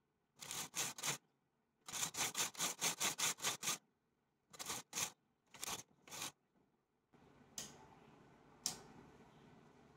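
Domestic flatbed knitting machine's carriage pushed across the needle bed, clattering in quick runs of clicks, about five a second, as it knits rows of a two-colour punch-card pattern. Near the end come two single clicks.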